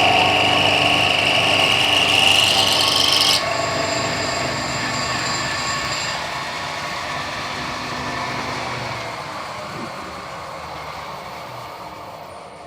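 A machine tool cutting metal with a loud grinding-hiss; the cutting stops abruptly about three and a half seconds in, and the machine then winds down, slowly fading.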